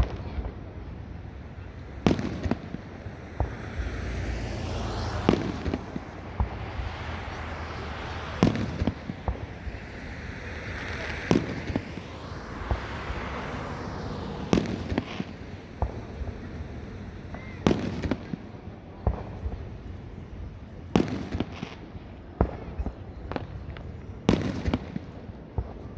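Fireworks display: irregular sharp booms of aerial shells going off, a dozen or more, over a continuous low rumble, with two longer stretches of crackling and hissing effects around the first third and middle.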